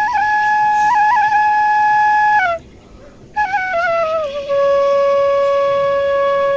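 Bansuri (bamboo flute) played solo. It holds a long high note with quick grace-note flourishes, stops for a breath about two and a half seconds in, then steps down in ornamented notes to a lower held note.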